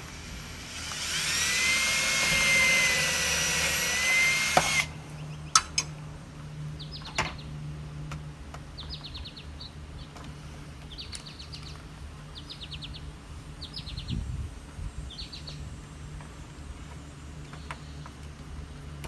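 Cordless drill running for about four seconds as it bores a pilot hole through a vinyl shutter into the siding, its motor whine steady, then cutting off suddenly. After it come a few sharp clicks and a small bird chirping in short quick trills, several times.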